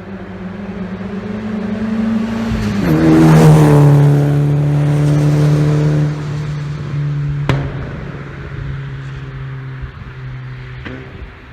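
Exhaust of a SEAT Cordoba SX's 1.6 AFT four-cylinder petrol engine driving past: a steady engine note that drops sharply in pitch about three seconds in as the car goes by, loudest just after, then fading away. A sharp click comes about seven and a half seconds in, and a fainter one near the end.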